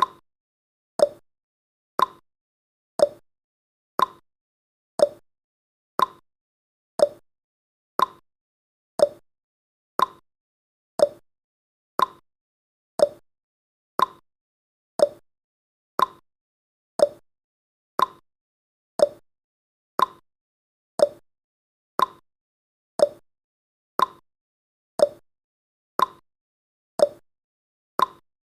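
Ticking-clock sound effect for a countdown timer: one sharp tick every second, alternating between a slightly higher and a slightly lower click like a tick-tock.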